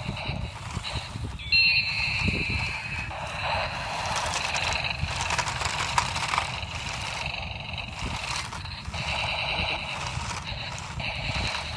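Toy RC tank running: a small electric motor and gearbox buzz that fades and returns several times, over a low rumble.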